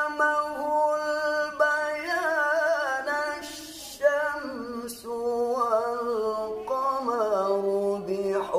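A man reciting the Quran solo and unaccompanied in the melismatic tilawah style: long held notes with wavering ornaments, and a short breath about three and a half seconds in.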